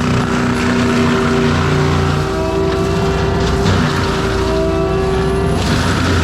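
ASV RT-120F compact track loader's diesel engine and forestry mulcher head running steadily under load, loud and continuous, its pitch sagging and recovering slightly as it works.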